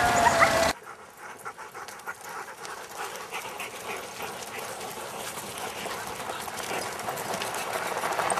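Sled dogs howling and yipping loudly, cut off suddenly under a second in; then sled dog puppies panting as they run in harness, over a rough crackling hiss that grows louder toward the end.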